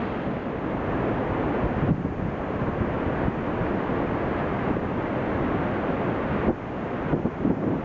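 Steady rushing of the Iguazu Falls, with wind buffeting the microphone.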